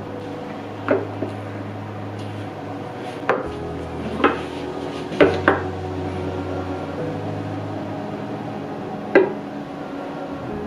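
Cookware and utensils being handled: about seven separate sharp knocks and clinks, the loudest near the end.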